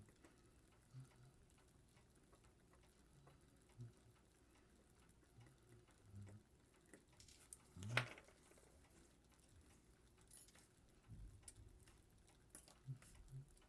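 Near silence with faint, scattered small clicks and taps of watchmaker's tools on a Seiko 7548 quartz movement, with one sharper click about eight seconds in.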